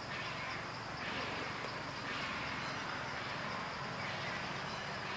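Steady outdoor background noise with no distinct event standing out.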